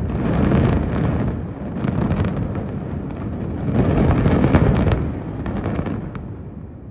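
Rapid crackling series of explosive demolition charges going off in the controlled implosion of high-rise towers, over a low rumble. It comes in two loud swells and dies away near the end.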